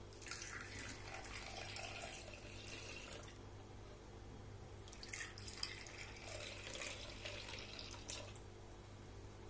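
Hot milky chai poured from a steel pan into clay cups, twice in turn: a faint trickling pour for about three seconds each time, with a short pause between. A short click comes near the end.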